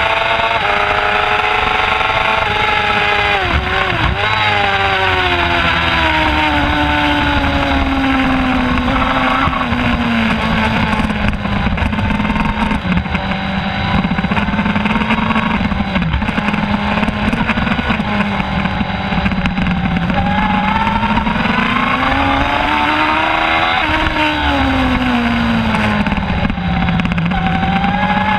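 Onboard sound of a middleweight superbike's engine running hard under race pace, with wind noise over it. The engine note drops sharply about four seconds in, stays lower for a while, climbs gradually to a peak about two-thirds of the way through, then falls again.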